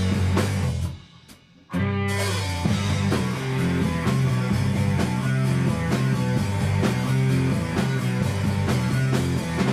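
Rock band playing live: electric guitar, bass guitar and drum kit in an instrumental passage. About a second in the whole band stops dead for under a second, then comes crashing back in together.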